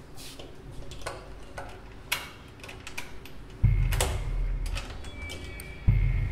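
Keys clicking and rattling as a key is worked in a door lock. About three and a half seconds in, a loud, deep rumble sets in suddenly with a thin high tone over it, and it swells again near the end.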